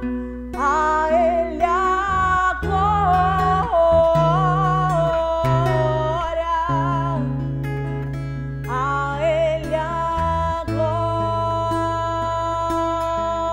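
A woman singing a slow worship song with vibrato on long held notes, accompanied by an acoustic guitar.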